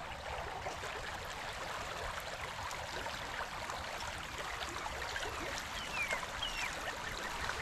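Steady rush of a shallow creek's water flowing, with a few faint high falling chirps about six seconds in.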